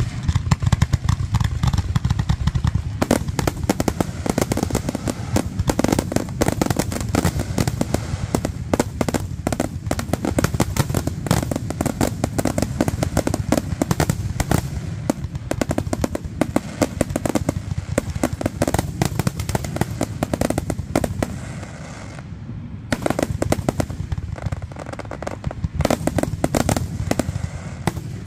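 Fireworks barrage: aerial shells bursting and crackling in rapid, near-continuous succession, with a deep rumble underneath and a brief lull about 22 seconds in before the bursts resume.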